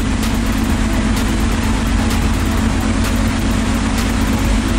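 Steady low drone of the Color Fantasy ferry's engines heard on deck, with a broad hiss over it.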